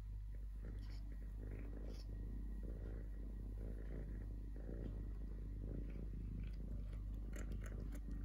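Domestic tabby kitten purring steadily while it eats, with small crunching clicks from dry kibble in a plastic tub, more frequent near the end.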